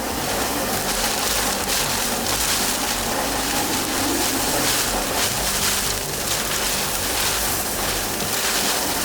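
Hurricane eyewall winds and heavy rain, heard as a steady, loud rush of noise with no let-up.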